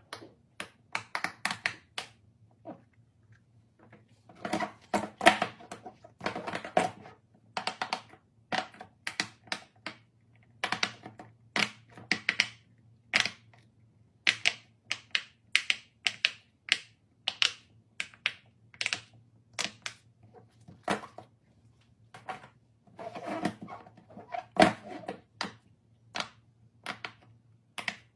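Silicone push-pop fidget toys being pressed by fingers: the bubbles pop in quick, irregular runs of sharp clicks, with denser flurries a few seconds in and again near the end.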